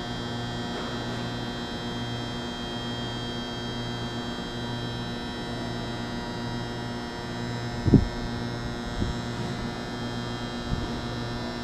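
Steady electrical hum made of several constant tones, with a low tone that swells and dips about every second and a half. A single thump comes about eight seconds in, followed by two fainter knocks.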